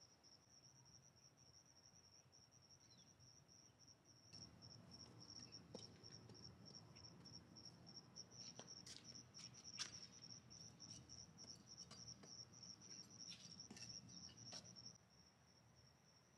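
Crickets chirping: a faint, continuous high-pitched trill. From about four seconds in until near the end, a low rumble and scattered sharp clicks join it.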